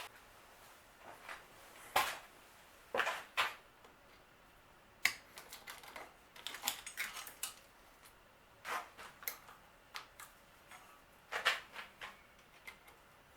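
Irregular clicks, clinks and knocks of hand tools and metal bike parts being handled while components are stripped off a mountain bike, with short pauses between them.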